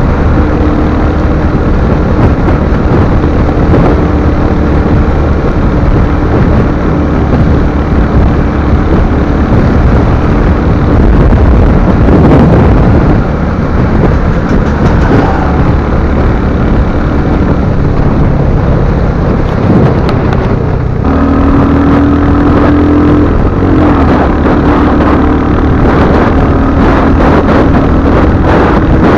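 Royal Enfield Hunter 350's single-cylinder engine running steadily under way, mixed with wind rushing over the microphone; the engine note shifts about two-thirds of the way through.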